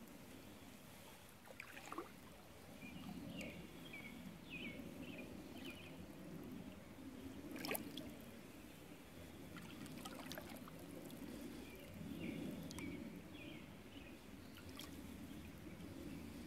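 Canoe paddle strokes through still creek water: a Grey Owl Guide wooden paddle swishing and dripping about every two to three seconds as the Jensen Solitude canoe glides. A few sharp knocks stand out, the loudest about eight seconds in, and small birds chirp faintly.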